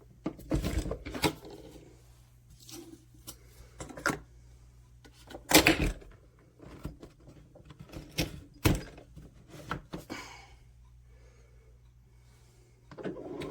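Nespresso Vertuo Pop+ capsule coffee machine starting a brew: a scattering of sharp clicks and knocks, the loudest about halfway through. Near the end its motor spins up with a rising whine as it begins spinning the capsule.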